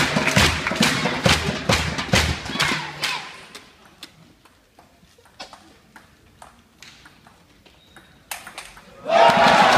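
A crowd cheering and clapping in a steady rhythm dies away, then a table tennis rally: the ball clicks sharply off the paddles and table about twice a second. Just before the end the crowd erupts in loud cheering as the point is won.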